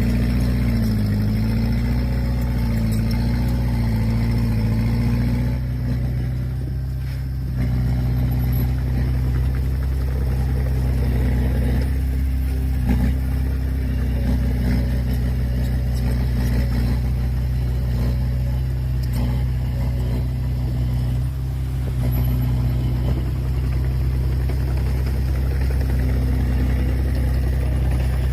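Heavy diesel engine of earthmoving machinery running steadily under load, its pitch wavering for the first few seconds, easing off briefly about six seconds in and again about twenty-one seconds in.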